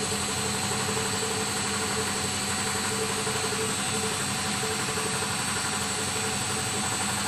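Air compressor on a lab compressor test set running steadily under its electric motor, a constant mechanical hum with fixed tones and a faint high whine over it.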